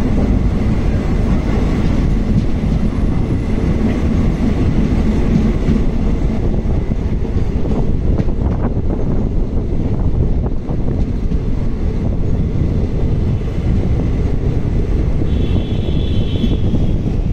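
Steady rumble and wind of a moving passenger train heard from its open doorway while a second train runs past alongside. A few clicks come about eight seconds in, and a brief high-pitched tone sounds near the end.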